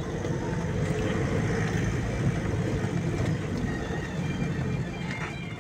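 Steady engine and road noise of a vehicle driving, heard from inside its cabin.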